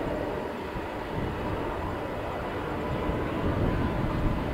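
Airbus A320neo with CFM LEAP-1A turbofan engines on its takeoff roll: a steady jet rumble with a thin whine.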